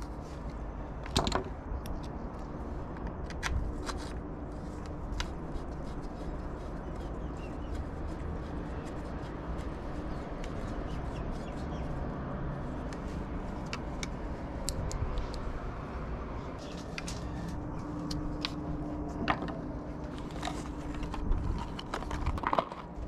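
Scattered light clicks, taps and scrapes of small metal parts and hand tools being handled, over a steady low background hum.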